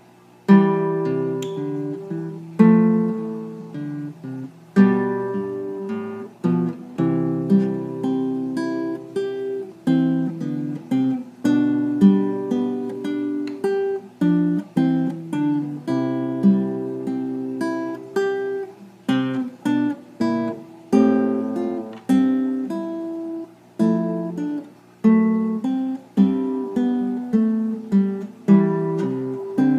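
Classical guitar played fingerstyle, an étude of plucked chords and broken-chord notes. The playing starts about half a second in and each phrase rings and fades before the next.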